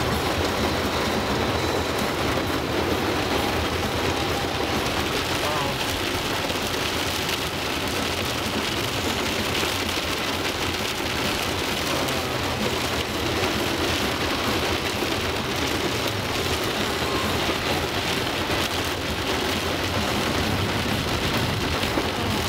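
Heavy rain hitting a car's roof and windshield, heard from inside the cabin, with the tyres running through water on the flooded road: a steady, even hiss.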